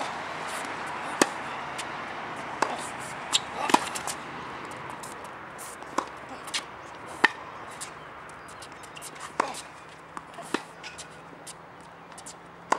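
Tennis balls struck with rackets in a rally on a hard court: sharp pops, from strokes and bounces, every second or so, over a steady background hiss.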